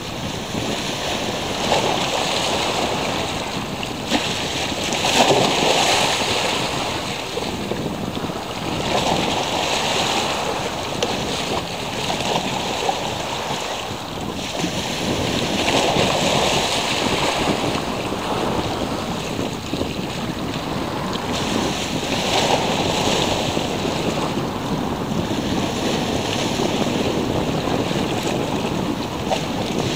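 Small sea waves washing onto the shore: a steady rush of surf that swells and eases every few seconds.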